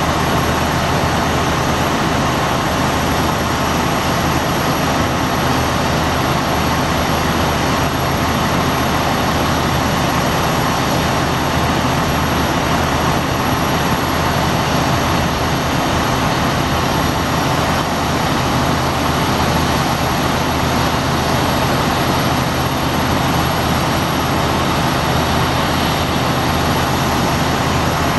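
Steady, unchanging drone of a large vehicle's engine with a low hum, holding one level throughout.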